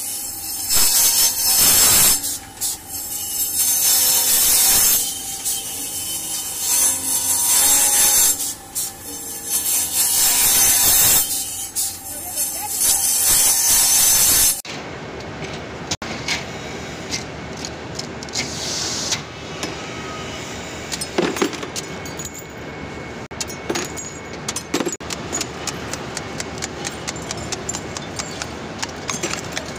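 Metal being ground against a spinning, motor-driven abrasive wheel, with wire brush wheels pressed on in repeated loud bursts of grinding. About halfway through the grinding cuts off abruptly, and a quieter machine with irregular clicks and a brief hiss follows.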